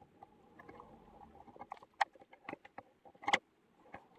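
A lino-cutting gouge carving lines into a soft lino block: quiet scraping as the blade is pushed through, then a run of sharp clicks and ticks as it digs in and flicks out of the cuts, the loudest about three seconds in.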